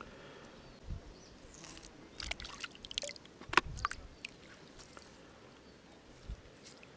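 Water dripping and sloshing, with small irregular splashes and squelches, as a wet gill net and the fish caught in it are handled at the surface of shallow lake water. The short sharp sounds bunch together in the middle, the loudest about halfway through.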